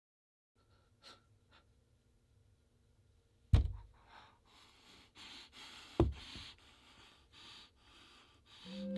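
Two sharp thumps about two and a half seconds apart over faint room hum, with soft, uneven breathing heard between and after them.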